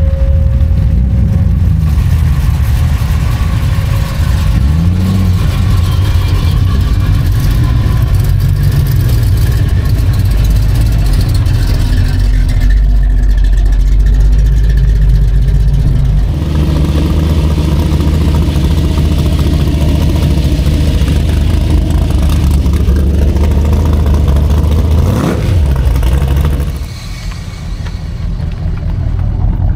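Classic muscle cars and hot rods driving slowly past one after another, their engines running with a deep, low sound. Near the end one engine revs sharply and briefly, then the sound drops away as the car moves off.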